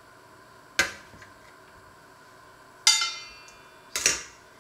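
Stainless-steel colander knocked by a hand tool while plums are prepared: three sharp clanks, about a second in, near three seconds and a double one at four seconds. The middle one rings on metallically.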